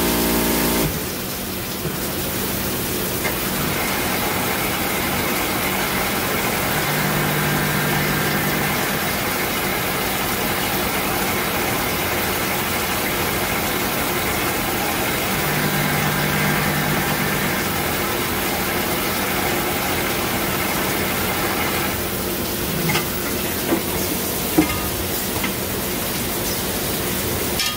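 Tsugami SS20 Swiss-type CNC lathe running a machining cycle, a steady machine hum under the hiss and splash of flood coolant spraying over the tooling. A deeper hum comes and goes twice, and a few short knocks come near the end.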